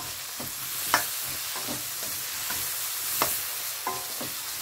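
Baby mushrooms sizzling in garlic butter in a wok while being stirred with a spatula, which knocks sharply against the pan twice.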